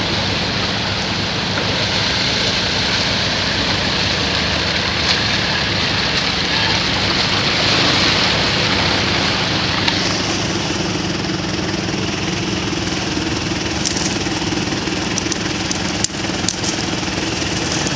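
Off-road 4x4's engine running at steady low revs as it crawls through a flooded, muddy ditch, under a continuous hiss. A few sharp crackles near the end.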